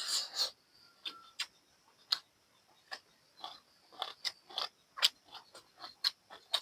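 Close-up eating sounds of buffalo-meat curry with rice: a crunchy bite right at the start, then chewing with sharp, irregular mouth clicks.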